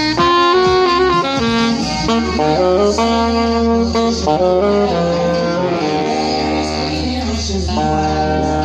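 Saxophone playing a jazzy melody, quick runs at first and then longer held notes, over a deep steady bass that comes in about two seconds in.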